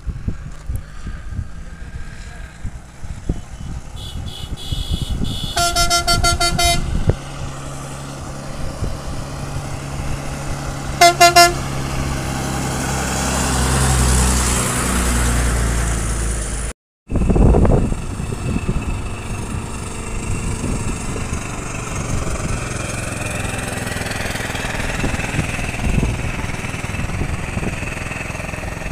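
A state-transport bus sounds its horn twice on a hill road, a blast of about a second and then a short double toot. Its engine grows louder as it climbs toward the listener and passes close by. The sound cuts off suddenly and gives way to steady outdoor noise.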